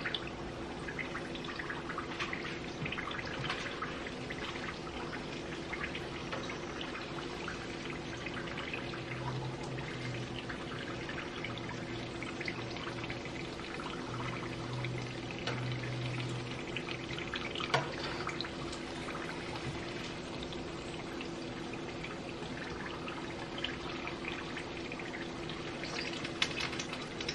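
Egg rolls deep-frying in hot vegetable oil: a steady bubbling, crackling sizzle over a faint steady hum, with a single sharp tap about two-thirds of the way through.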